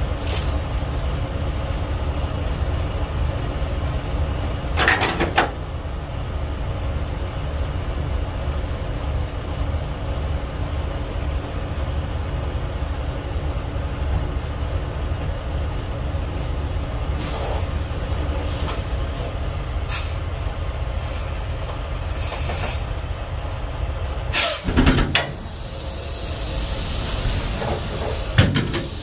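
Diesel engine of a Freightliner Cascadia semi truck running steadily. Short bursts of air hissing from the truck's air system come about 5 s in, several times between about 17 and 23 s, and again near the end.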